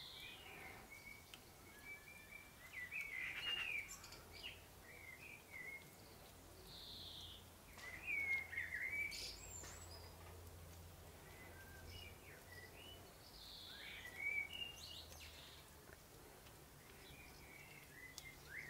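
Birds chirping and calling in short, scattered phrases, with a faint low hum through the middle.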